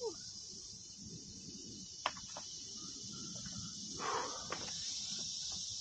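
Steady, high-pitched chorus of insects, crickets or similar, with a sharp click about two seconds in and a short rustle around four seconds.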